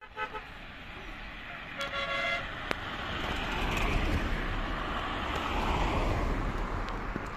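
A vehicle horn toots briefly twice, once right at the start and again about two seconds in, then the rushing noise of a vehicle swells and fades over several seconds.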